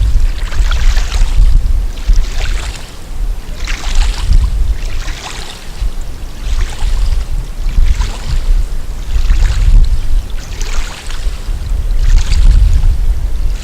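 Wind buffeting the microphone in a heavy low rumble, with a hissing wash of noise that swells and fades about every second and a half.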